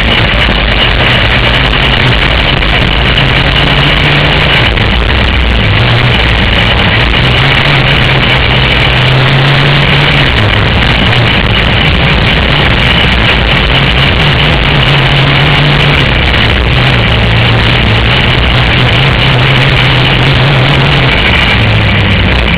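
Racing kart engine at full race pace, heard up close, its revs climbing and dropping every few seconds as the kart laps a dirt oval.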